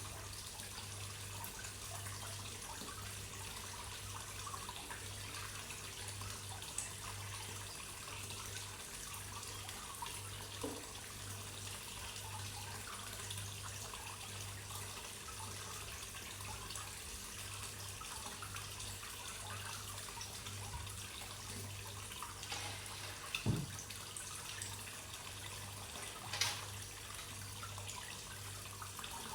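Pond water trickling and splashing steadily over a low hum that pulses. A few brief plops or splashes stand out, the loudest about two thirds of the way in.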